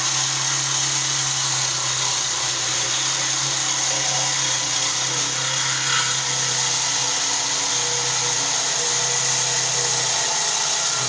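Reciprocating saw running steadily, its blade sawing through a compressor's metal shell.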